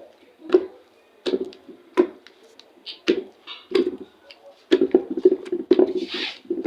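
Irregular knocks and taps of food items and containers being handled and set down, growing busier in the last couple of seconds, with a brief rustle near the end.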